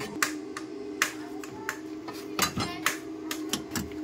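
Hammer knocking on the sheet-steel wheel arch panel of a Suzuki Carry mini truck, about a dozen sharp, irregularly spaced metallic strikes over a steady low hum.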